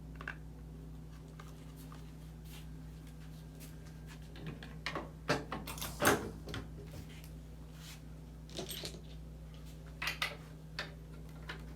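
Parts of a Taylor 342D frozen drink machine being handled and fitted: scattered clicks and knocks in small clusters, the loudest about six seconds in, over a steady low hum.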